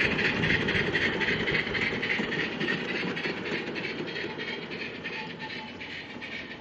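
7/8ths-scale live steam locomotive running along garden railway track: a steady hiss of steam with light clicking from the wheels on the rails, fading as it moves away.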